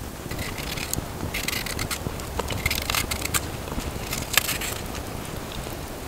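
Vegetable peeler scraping along raw vegetables in a series of short strokes, with a few sharp clicks in between.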